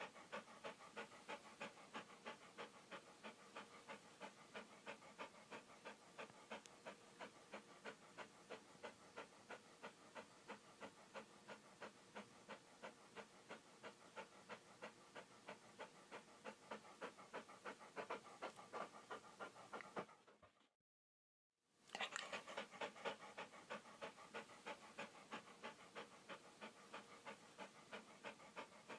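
A dog panting quickly and evenly, about three breaths a second, faint in level. It breaks off for about a second some two-thirds of the way through, then starts again.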